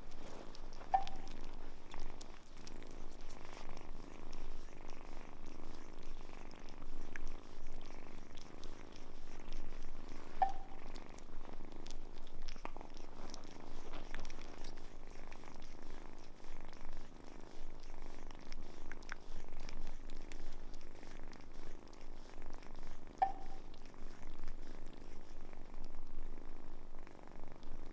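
Domestic cat purring steadily and close up, the purr rising and falling with each breath, with three brief chirps spread through it.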